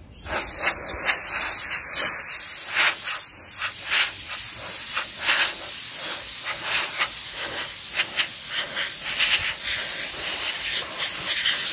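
Compressed-air blow gun hissing as it blasts over a freshly cleaned circuit board to blow it dry. It starts abruptly and pulses louder and softer as the nozzle is moved over the board.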